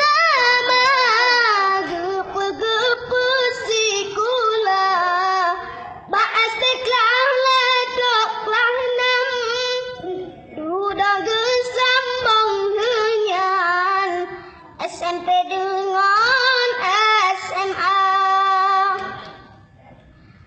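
A child's high voice singing alone, with no accompaniment. It sings in about four long phrases full of quick turns in pitch, with short breaks between them, and stops about a second before the end.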